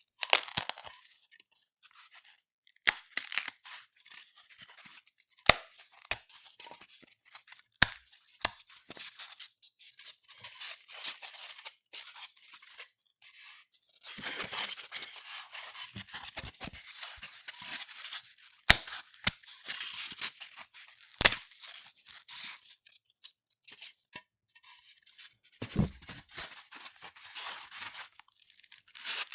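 Polystyrene (styrofoam) foam being rubbed and broken: irregular bursts of scratchy crackling, with a few sharp snaps as pieces break.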